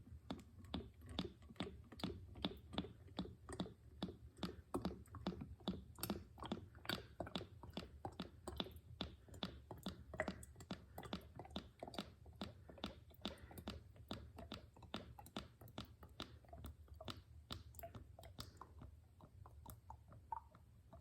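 Motor oil glugging as it is poured from a gallon jug into a quart bottle, an even train of gulps about two to three a second that weakens near the end.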